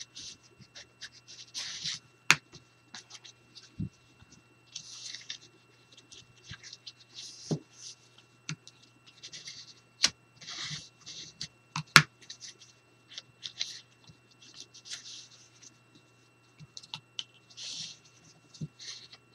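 Plastic burnishing tool rubbed back and forth over the score lines of thick cardstock, pressing the folds in: a run of short, irregular scratchy strokes with a few sharp taps among them.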